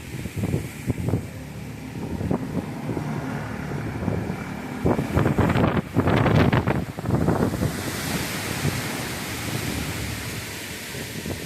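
Violent storm wind gusting and buffeting the microphone in irregular low rumbling blasts, strongest about halfway through, then settling into a steadier rushing hiss.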